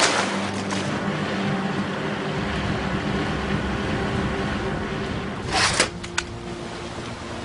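Water splashing as a bowhead whale's tail goes under, then a small outboard motorboat running steadily over the water. There is a short burst of noise about five and a half seconds in, and a click just after it.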